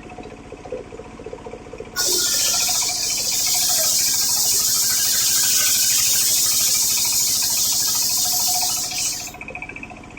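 Homemade circular saw machine running, its blade cutting through coconut-palm wood for about seven seconds from about two seconds in: a loud, steady high hiss that starts and stops abruptly over the machine's lower running sound.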